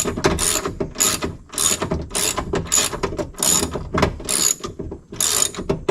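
Hand ratchet clicking in quick back-and-forth strokes, about two a second, as it runs down the mounting bolts of a window regulator inside a car door.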